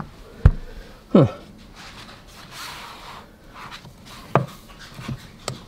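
Handling sounds of a paperback being picked up off a bedside table: a few sharp knocks and soft rubbing and rustling, with a short sound falling in pitch about a second in.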